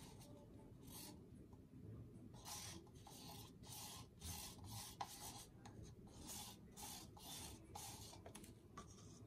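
Faint rubbing, scraping strokes, about two a second, starting a couple of seconds in, from gloved hands gripping and turning a thin plastic cup while pouring paint.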